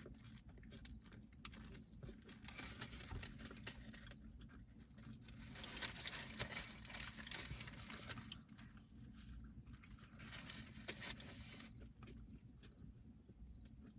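Close-up eating sounds: a paper food wrapper crinkling and rustling, mixed with chewing. The crackling is busiest from about four to twelve seconds in, over a low steady hum.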